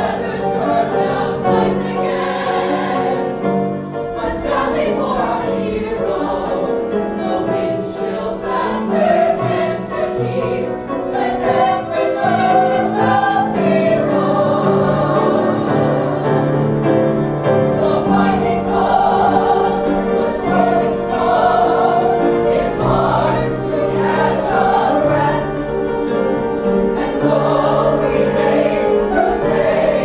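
Musical-theatre ensemble singing in chorus with instrumental accompaniment, a continuous full-cast number with sustained notes.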